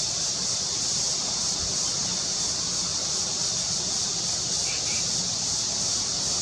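Steady, high-pitched drone of an insect chorus, with a few brief bird chirps about five seconds in.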